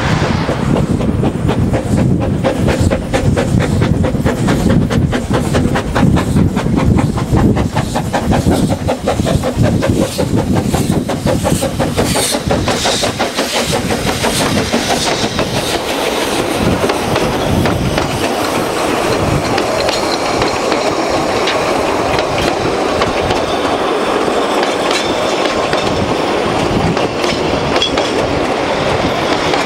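Ffestiniog Railway narrow-gauge steam train passing close: the locomotive goes by with quick, regular beats and escaping steam for the first half, then the carriages roll past with a steady clatter of wheels on the rails.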